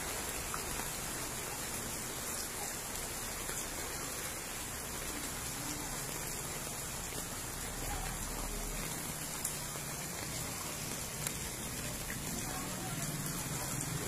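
Steady rain falling on a flooded street. A low engine hum grows near the end as a motorcycle rides through the floodwater.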